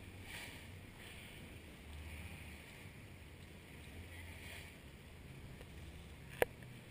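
Sea water washing along the hull of a slow-moving rigid inflatable boat, swelling and fading every second or two over a low rumble. A single sharp click sounds near the end.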